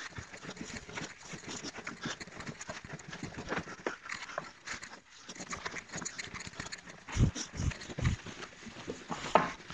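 Scotch-Brite pad scrubbing the painted plastic front bumper of a Vauxhall Nova SR with soapy water, in quick repeated wet rubbing strokes to take the shine off and key the paint. Two dull thumps come about seven and eight seconds in.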